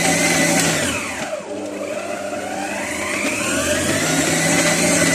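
Electric stand mixer running, its dough hook kneading bread dough in a stainless steel bowl. The motor whine falls in pitch and dips in loudness about a second in, then climbs back up over the next two seconds.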